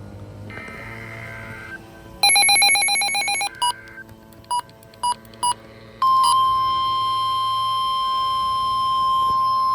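Emergency Alert System signal on a NOAA weather radio. It opens with a short burst of SAME header data tones. A loud buzzing alert tone follows, then a few short beeps. About six seconds in, the steady 1050 Hz warning alarm tone starts, marking the start of a flash flood warning.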